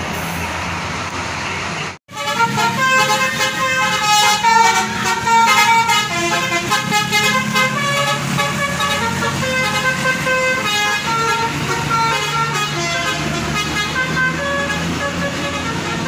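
About two seconds of street traffic noise, then an abrupt cut. After it, a tour bus's telolet basuri multi-tone musical horn plays a quick tune of stepping notes over the steady hum of the bus engine.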